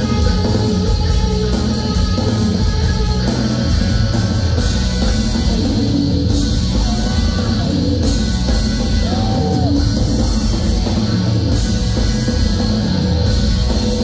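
A shoegaze rock band playing live: loud, dense distorted electric guitars over bass and a drum kit in one steady wall of sound, with a few brief sliding guitar notes partway through.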